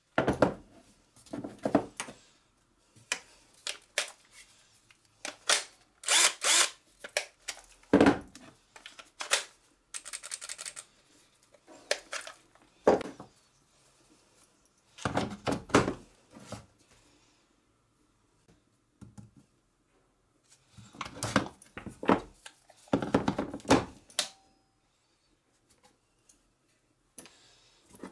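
Plastic cordless-tool battery packs and a charger being handled on a rubber-matted workbench: a pack is unlatched from a drill and slotted onto its charger. The sound is a scattered series of clicks, knocks and short scrapes, with a couple of quiet pauses.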